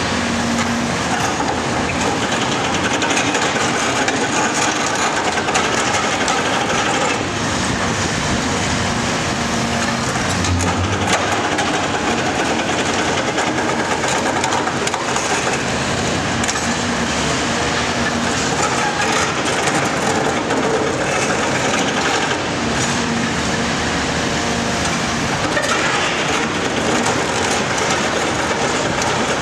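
Cat 340SB demolition excavator running while its Cat MP 345 multi-processor jaws crush concrete: continuous crackling and crunching of breaking concrete and rubble over the machine's engine.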